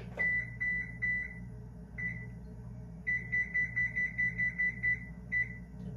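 Electric oven's digital keypad beeping as its buttons are pressed to set the baking temperature. Short high-pitched beeps: a run of them in the first second, single beeps now and then, and a quick run of about five a second near the middle.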